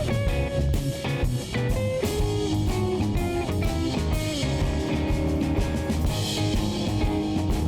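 Background music: a guitar-led rock track with a drum kit.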